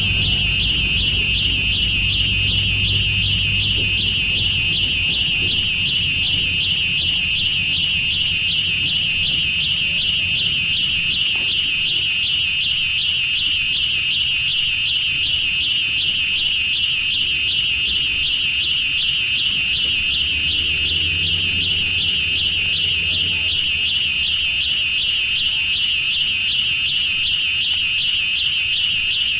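Experimental electronic noise piece built from railroad recordings: a steady, high-pitched warbling tone like an alarm, over a low rumble that is heavier at the start and again about twenty seconds in.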